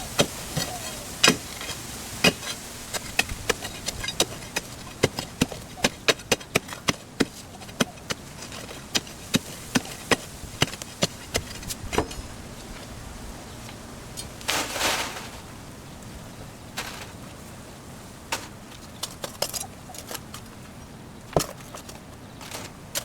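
Stones clacking and knocking against each other as they are dug out of a post hole by hand: many sharp, irregular knocks, thick in the first half and sparser later, with a brief scraping rush about two-thirds of the way through.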